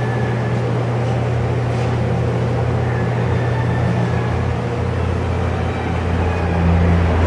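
Jet 16" x 40" engine lathe running with its chuck spinning, a steady, quiet mechanical hum that grows a little louder near the end.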